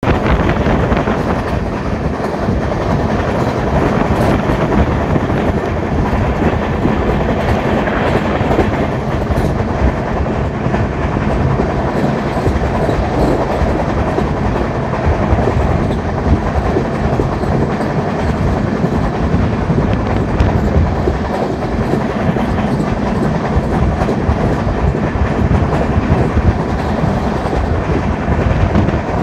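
LHB coach bogie at speed: steel wheels rolling on the rail right beside the microphone, giving a loud, steady rumble with a constant clatter of clicks and knocks running through it.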